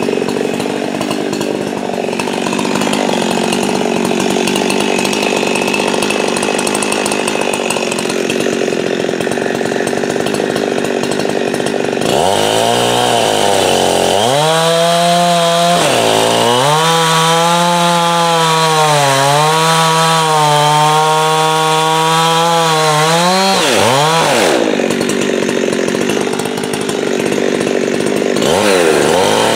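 Jonsered two-stroke chainsaw running at high revs while cutting wood. Its engine note sags and recovers as the chain loads up in the cut, falls away about two thirds through, then revs up again near the end.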